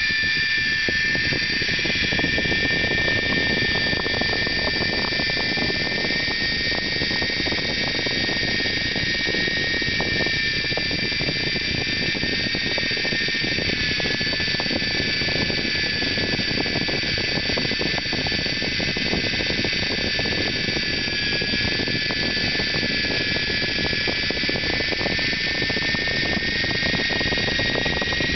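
Blade mCX2 micro coaxial RC helicopter hovering: the steady high whine of its small electric motors and gearing over the buzz of the spinning rotor blades, its pitch dipping slightly a couple of times.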